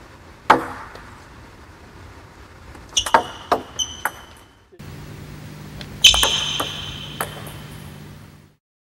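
Table tennis serves: sharp clicks of the racket striking the ball and the ball bouncing on the table, each with a short pitched ring and echo from the hall. A quick run of clicks comes about three seconds in, and the loudest strike comes about six seconds in.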